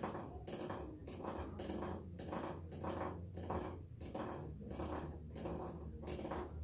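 Wooden malacate spindle spun with its tip in a small bowl, scraping in an even rhythm of about two or three strokes a second as it is twirled to spin cotton into thread.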